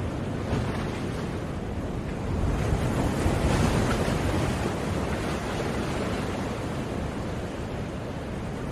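Ocean waves breaking on a shore, a steady wash of surf that swells to a peak a few seconds in and then slowly ebbs.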